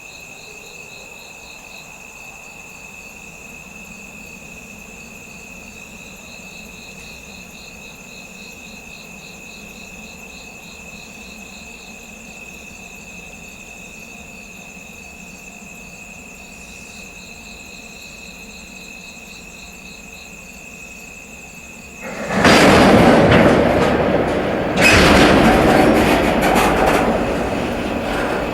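Crickets chirping steadily in a night-time quiet, then a train suddenly becomes loud about three-quarters of the way through, with a second, louder surge a few seconds later.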